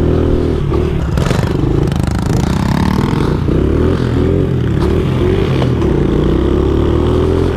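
70cc pit bike engine running under way, its pitch rising and falling several times as the throttle is worked, with a couple of brief clicks.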